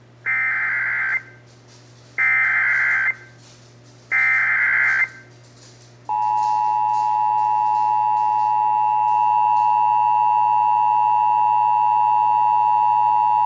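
Emergency Alert System signal on AM radio, encoding a severe thunderstorm warning. It opens with three short bursts of warbling SAME data tones, each just under a second. About six seconds in comes the steady two-tone attention signal, a loud dual tone that keeps going.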